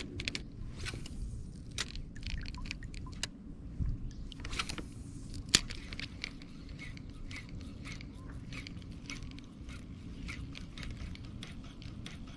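Casting and retrieving a lure on a spinning rod and reel: scattered small clicks and ticks from the reel and line handling, with one sharp click about five and a half seconds in, over a steady low rumble.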